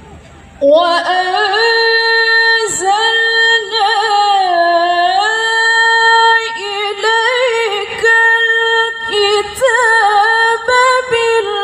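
A woman's voice reciting the Qur'an in melodic tilawah style over a loudspeaker system, with no instruments: long held notes with ornaments and sliding pitch. It starts suddenly under a second in, after a low murmur.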